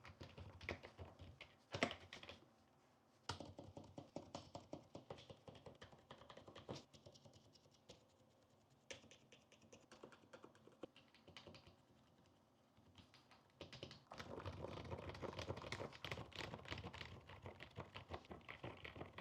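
Typing on a membrane keyboard: soft, quiet key presses in irregular runs. After a short lull, the keystrokes become faster and continuous from about fourteen seconds in.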